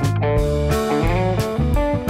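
Background music led by guitar, with held, bending notes over strong low notes and a steady beat.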